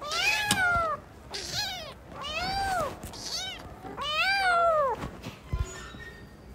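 Kittens meowing, about five loud meows in quick succession, each rising and then falling in pitch, with the calls stopping about five seconds in.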